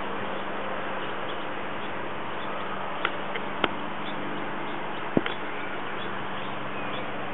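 Steady outdoor background hiss with a few faint bird chirps. Three or four sharp clicks come about three to five seconds in.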